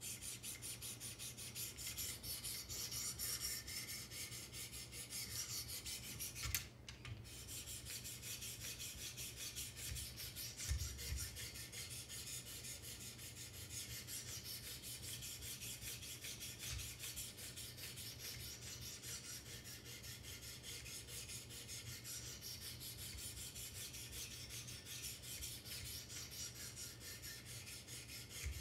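Wicked Edge sharpener's 600-grit abrasive paddles stroked quickly and steadily along both sides of a clamped knife blade: an even, rasping scrape of steel on abrasive. There is a brief pause about six and a half seconds in.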